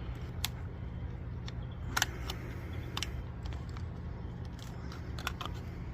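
A few irregular small clicks and taps of a motorcycle turn signal bulb being pushed into its socket and twisted, and of the signal's plastic housing being handled, the sharpest about two seconds in, over a steady low hum.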